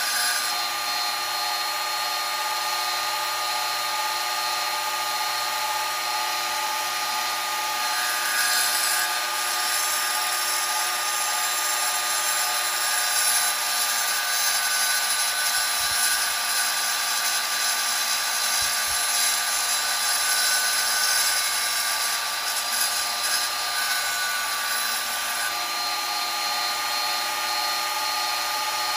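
Wet tile saw running, its diamond blade grinding into a glass liquor bottle that is turned by hand against it: a steady motor whine under a gritty, hissing grind that rises and eases a little as the bottle turns.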